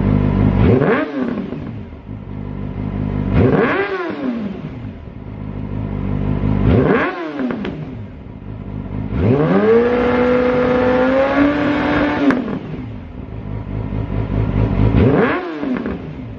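Yamaha YZF R6 inline-four sport bike exhaust through a Lextek full system and GP1 aftermarket silencer, revved while standing still from idle: three quick blips, a rev held for about three seconds, then another quick blip, dropping back to idle between each.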